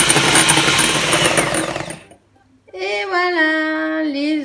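Russell Hobbs electric hand mixer running, its beaters whipping egg whites in a glass bowl, until it stops abruptly about halfway through. After a short silence, singing with held, bending notes comes in.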